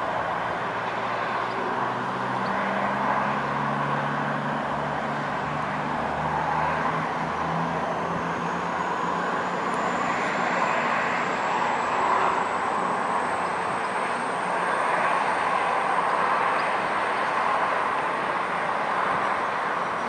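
Virgin Voyager diesel multiple unit pulling away from the platform: its underfloor diesel engines open up in steps, then a steady running noise as the train moves off, with a faint high whine rising slowly in pitch from about halfway.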